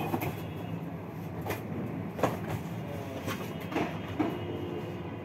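City street traffic with buses passing close by: a steady low engine rumble, with several sharp knocks or clanks scattered through it. A thin steady whine comes in near the end.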